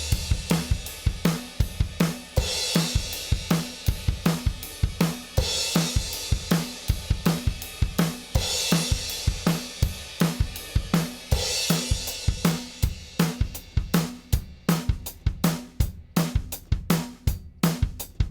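Drum kit groove with kick, snare and hi-hat in a steady beat and a cymbal wash about every three seconds, played as a demo of the Mohog Audio MoFET76 1176-style FET compressor. Toward the end the hits stand out more sharply, with deeper dips between them.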